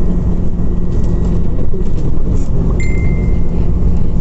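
Scania Omnicity CNG city bus engine running with a steady low drone, heard from inside the passenger cabin. Shortly after the midpoint a short high beep sounds for under a second.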